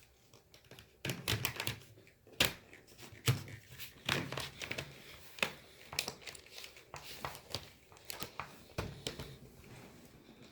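Hands working on a laptop's plastic parts and screen panel: irregular light clicks and taps mixed with short crinkling rustles.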